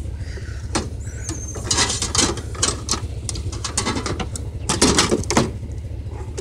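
Rummaging through a plastic recycling bin of junk: irregular clunks, rattles and rustles of cardboard, plastic and metal as objects are shifted and a long rod is pulled out. The clatter is busiest about two seconds in and again near five seconds.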